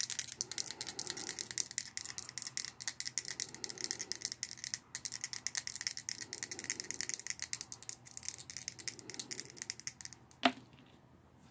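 Small gaming dice rattling, shaken in a hand: a steady run of small clicks for about ten seconds, ending in a single sharp click near the end.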